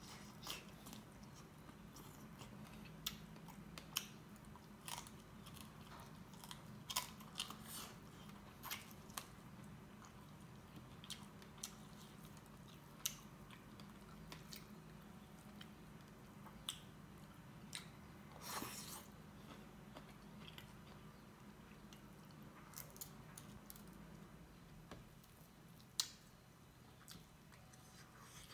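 Close-up eating sounds: a man chewing and biting chicken and dhido eaten by hand, with scattered short crunches, clicks and mouth smacks over a faint steady low hum.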